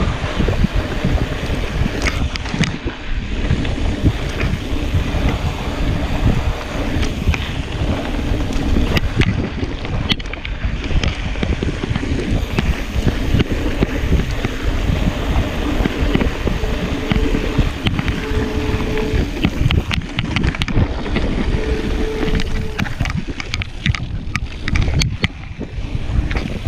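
Mountain bike rolling fast downhill on a dirt singletrack: steady wind rush on the camera microphone, with tyres crunching and the bike rattling and clicking over rough ground.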